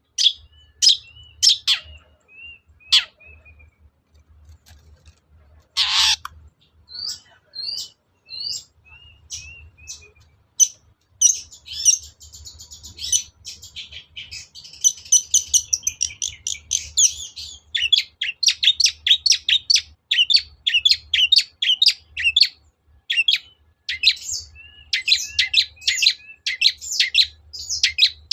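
Long-tailed shrike (cendet) singing: scattered sharp, high notes at first, a dense buzzy chatter about twelve seconds in, then a fast run of sharp repeated notes through the second half.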